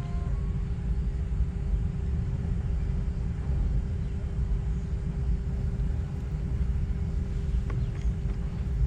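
Steady low rumble with a faint constant hum running through it.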